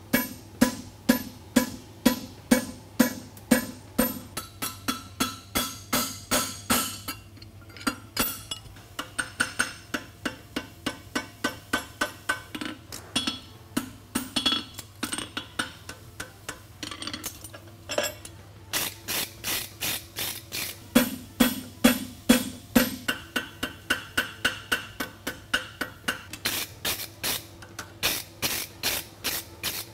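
Hammer striking a hot steel horseshoe and a fullering tool on an anvil in quick, even blows, about three a second, each with a ringing metallic clang; the farrier is refullering and shaping the shoe. The blows pause briefly about eight and again about seventeen seconds in.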